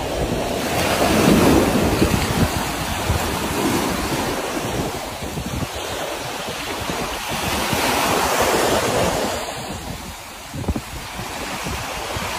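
Small waves washing up on a sandy beach, with wind buffeting the microphone. The wash swells louder about a second in and again around eight seconds in.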